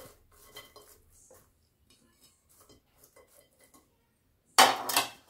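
Faint soft taps and rustles of cooked chicken pieces being pushed by hand off a ceramic plate into a salad bowl, then a loud clatter of china dishes near the end.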